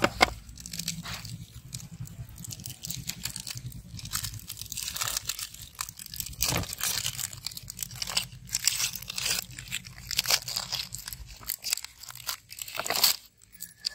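Chocolate-bar wrappers crinkling and tearing as KitKat bars are unwrapped by hand, an irregular run of crackles throughout.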